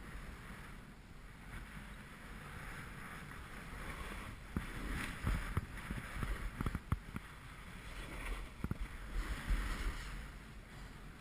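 Wind rumbling on the microphone of a camera skiing downhill, with the hiss of skis carving on packed snow that swells and fades with the turns. A few short knocks come in the middle.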